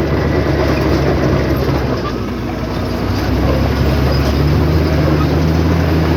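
Heavy earthmoving machine's diesel engine running steadily under load. It eases off slightly about two seconds in and picks up again about four seconds in.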